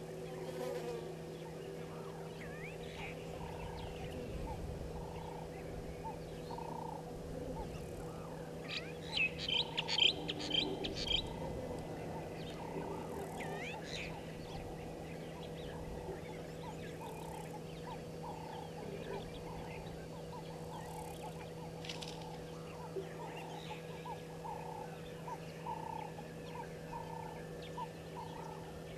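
Waterhole bush ambience: frogs calling in a steady, regular pulse over a low hum, with a short burst of high, chattering bird calls about nine seconds in and a few scattered chirps.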